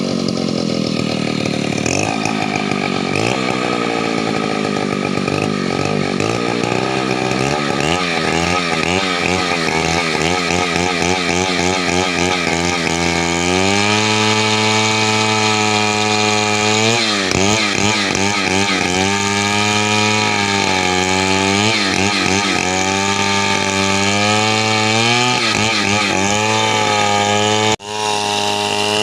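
Two-stroke chainsaw running at high revs for the whole stretch, its pitch dipping and recovering again and again, typical of the chain working through wood under load. The sound drops out abruptly for an instant near the end, then resumes.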